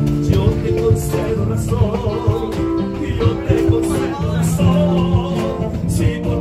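Live acoustic guitar music with a singer, played inside a train carriage.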